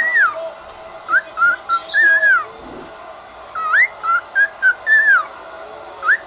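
Male cockatiel whistling its courtship song: short whistled notes that swoop up and down, sung in three phrases with pauses between them.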